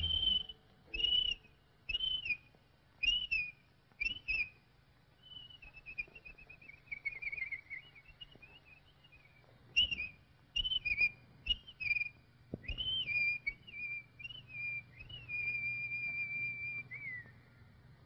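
Whistled bird calls: short gliding notes about once a second, then a falling warble, more short notes, and a long held note that drops away near the end.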